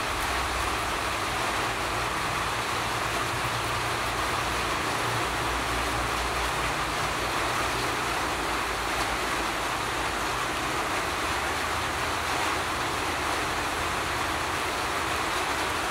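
A steady rushing noise with a faint low rumble underneath, unchanging throughout.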